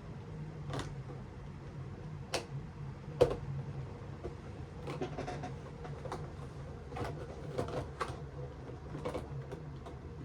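Plastic parts of a Beyblade X stadium being handled and pressed together: scattered clicks and knocks, the loudest about three seconds in, as a stiff clip is worked into place.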